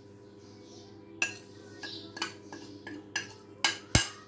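Metal spoon tapping and scraping spices off a plate into a steel pot: a run of about eight light clinks, the loudest near the end.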